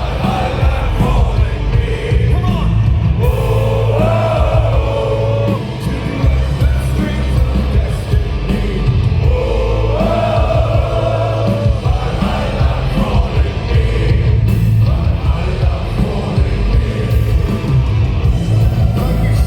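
A live rock band playing a heavy folk-metal song, with sung vocals over driving drums, bass and distorted guitars.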